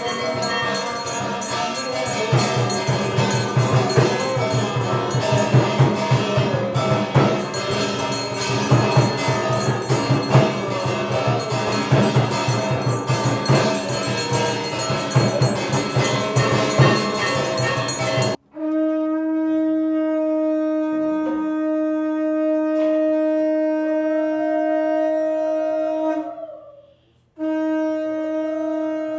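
Brass hand bell ringing amid dense drumming for arati. About two-thirds of the way in, an abrupt cut to a conch shell (shankha) blown in one long steady note; it breaks off near the end, and a second blow starts right after.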